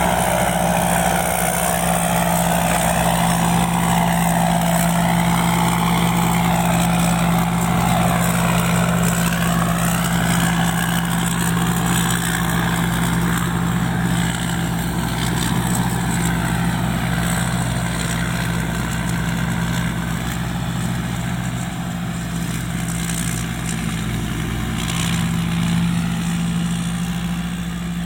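Rice combine harvester's engine running steadily, with a constant low drone.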